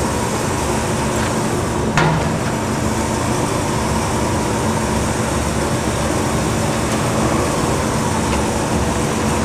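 DoAll 2013V vertical band saw running free with no cut, its 2 HP main drive and blade making a steady mechanical noise while the variable blade speed is turned down at the dial. A brief click about two seconds in.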